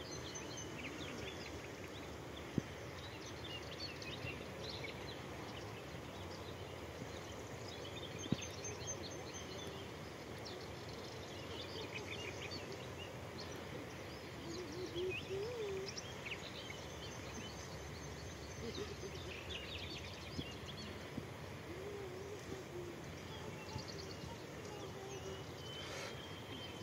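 Birds chirping and calling over a steady outdoor background hiss, with a couple of sharp clicks in the first ten seconds.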